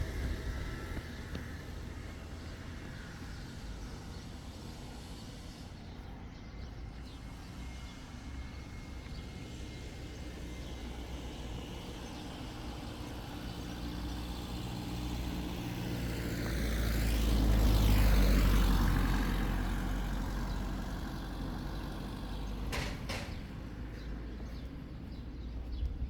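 A motor vehicle passing close by: its engine and tyre noise build slowly, peak about two-thirds of the way through with a rising-then-falling sweep, and fade away. A couple of sharp knocks follow shortly after.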